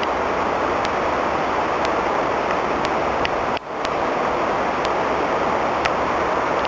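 Steady rushing wind noise on a handheld camera's microphone, with faint ticks about once a second and a brief drop-out a little past halfway.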